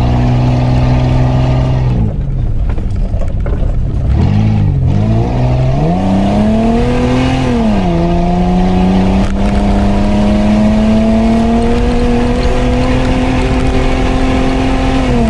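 An off-road 4x4's engine heard from inside the cabin while driving a grassy track. The revs fall away about two seconds in, climb again, drop once more about halfway through, then rise slowly and steadily.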